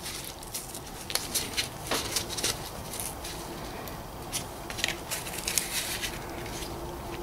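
Plastic blister packaging of a CR1620 coin-cell battery crackling and clicking as gloved hands tear it open, with irregular small clicks from handling.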